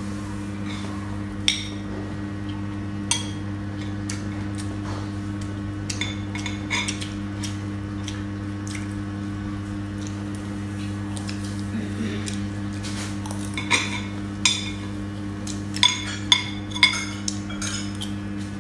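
Metal spoons and forks clinking and scraping against ceramic plates and bowls during a meal, in scattered sharp clicks that come thicker near the end, over a steady low hum.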